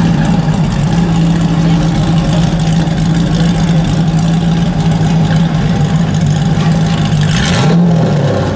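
Mazzanti Evantra's V8 engine idling steadily, with a short rise in revs near the end.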